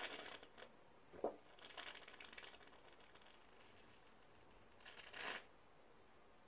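Faint gulping and liquid glugging from a glass bottle being drunk from without a break: a few short, crackly bursts of sound with quiet between them.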